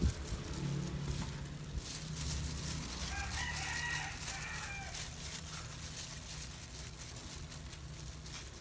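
A single long crowing bird call about three seconds in, lasting roughly two seconds, over a steady low hum.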